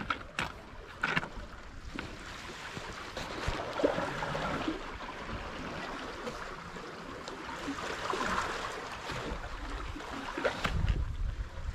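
Water lapping and washing in slow swells, with a few sharp clicks and a gust of wind on the microphone near the end.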